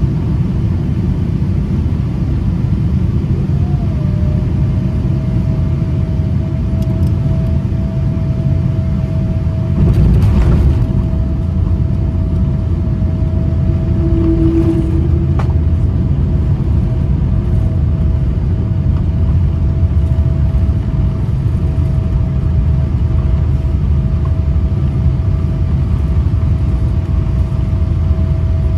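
Cabin noise of a Boeing 787 landing, heard at a window seat over the wing: a steady, loud low rumble of the engines and airflow. About ten seconds in comes a brief, louder rough burst, most likely the main wheels touching down, followed by the rumble of the rollout with spoilers raised. A thin, steady whine sets in about four seconds in and holds.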